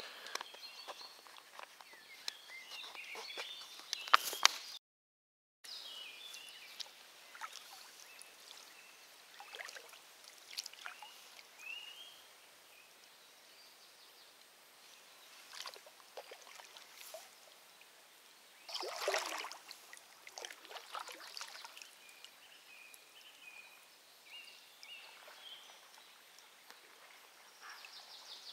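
Kayak paddles dipping and splashing in slow river water, with small birds chirping and calling throughout. The sound cuts out for a moment about five seconds in.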